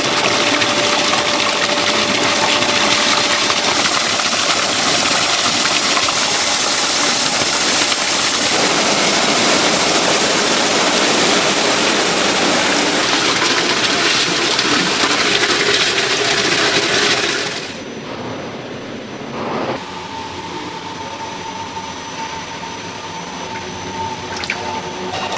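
Food-factory processing machinery giving a loud, steady rushing noise. About three-quarters of the way through, it drops abruptly to a quieter machine hum with a steady high whine.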